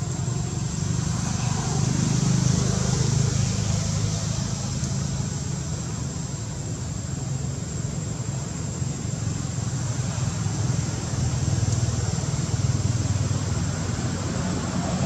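Steady low rumble with a thin, high, steady tone above it; the rumble swells a little about two seconds in and again near the end.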